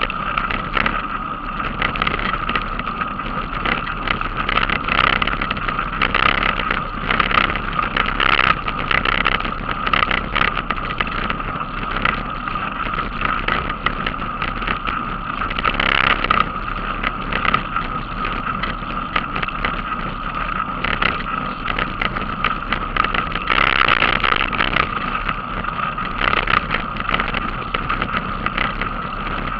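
Wind buffeting and road rattle on the microphone of a camera carried on a moving bicycle riding on tarmac: a steady rush with constant irregular knocks, swelling louder a few times.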